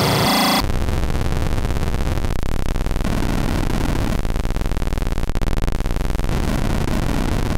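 Hand-built circuit-bent noise machine putting out harsh electronic noise. About half a second in, its sound switches abruptly to a dense, rapidly fluttering buzz with a heavy low end.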